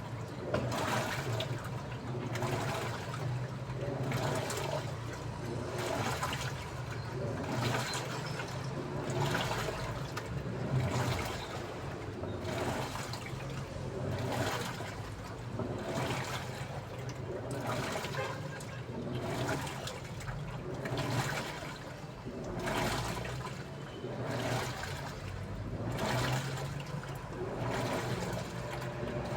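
Daewoo washing machine running with water in the drum: a swish of sloshing water repeats about once a second over a steady low motor hum.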